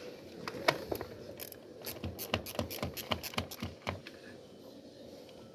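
Ratchet wrench clicking in quick, uneven runs as bolts on top of the engine are loosened. The clicking stops about four seconds in.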